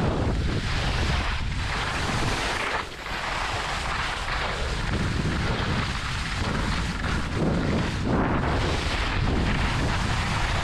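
Wind rushing over the microphone of a skier's camera on a fast downhill run, mixed with the scrape of skis on packed snow. The noise dips briefly about three seconds in.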